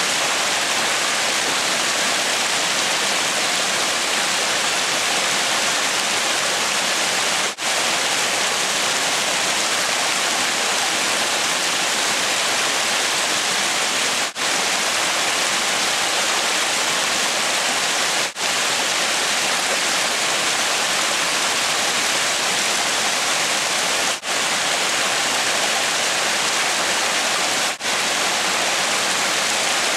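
Creek water rushing steadily, a loud even wash of running water, broken by about five very brief dropouts.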